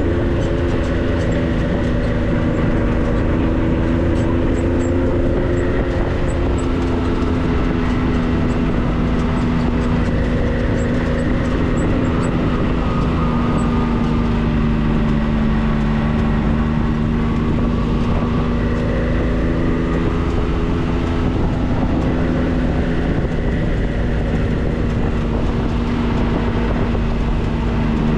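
A motor vehicle driving at steady speed: a constant engine drone over road and tyre rumble, its pitch drifting slowly up and down.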